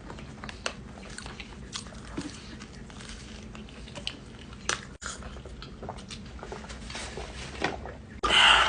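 A person chewing smothered chicken close to the microphone, with irregular wet mouth clicks and smacks. There is a louder, noisier burst near the end.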